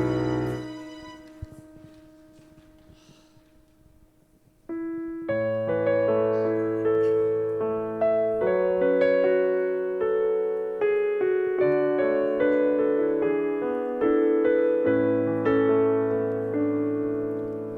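Worship music dies away over the first second, then a short near-quiet pause. From about five seconds in, a piano plays a slow introduction in sustained chords, striking a new chord about every second.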